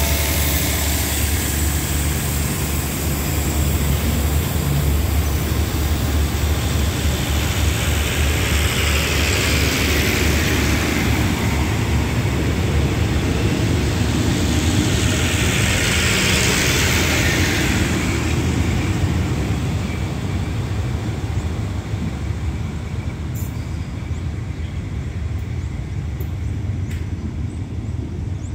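Passenger coaches of a departing train rolling past on the rails, a steady low rumble of wheels on track. It eases off after about twenty seconds as the train draws away, with a few faint clicks near the end.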